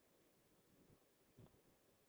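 Near silence: faint room tone, with one brief faint low thump about one and a half seconds in.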